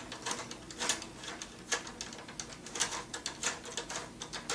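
Plastic clicking from the turning ladder controls of a Bruder 02771 toy fire engine being worked by hand: irregular sharp clicks, bunched into quicker runs in places.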